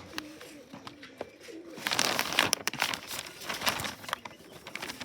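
Racing pigeons cooing in a loft, low wavering calls, with a stretch of rustling and scuffling from about two seconds in.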